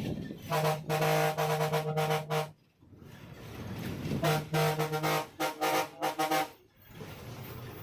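Bus horn honking: two long blasts of one steady horn note, each broken into quick repeated toots, about two seconds apart, with the bus running between them.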